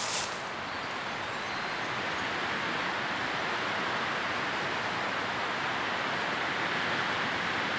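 Leaves rustling in the wind as a steady, even rush, with a brief louder rustle at the start.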